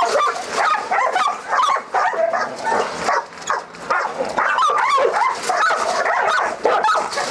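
Two dogs barking at each other through the bars of a steel cage without pause, a dense run of short, high calls. The caged one, a six-month-old pitbull–pointer mix, is highly aggressive.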